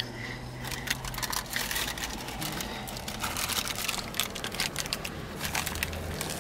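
Paper sandwich wrapper crinkling and rustling in irregular bursts as a wrapped burger is handled and bitten into.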